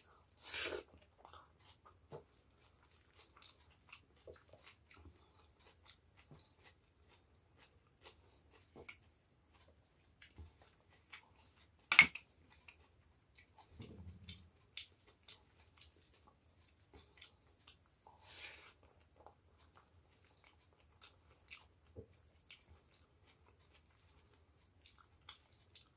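Close-up eating sounds: soft chewing and the small wet clicks of fingers mixing rice with curry. A cricket chirps in rapid, steady pulses throughout, and one sharp click stands out about halfway through.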